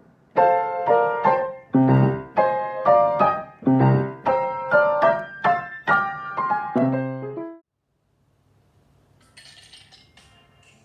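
Piano played by ear: a run of full chords with bass notes, struck about twice a second, stopping abruptly about three-quarters of the way in. A faint, indistinct sound follows near the end.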